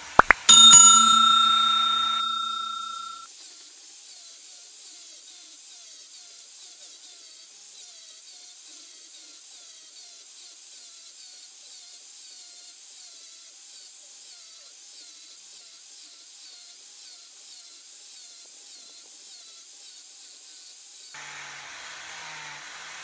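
A sharp metal strike about half a second in, followed by a clear bell-like ring of several tones that dies away over about three seconds; then only a faint steady background.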